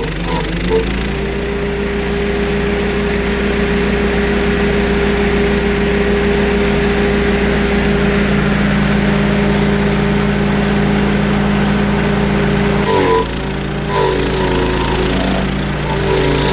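Stump grinder's engine running steadily under load as it grinds a stump. About thirteen seconds in the pitch dips and wavers as the cutter bites.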